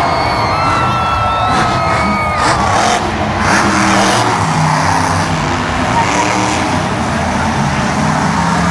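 Monster truck's supercharged V8 running loud as the truck drives across the dirt track, its pitch rising and falling with the throttle, heard across an open stadium over crowd noise.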